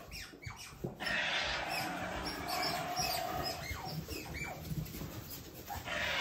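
Asian small-clawed otters giving short, high, squeaky chirps, with a few falling calls near the middle.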